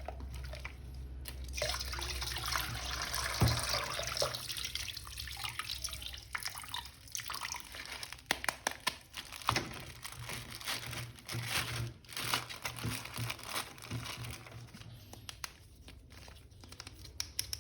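Water running and splashing, followed by a run of light clicks and taps from small objects being handled.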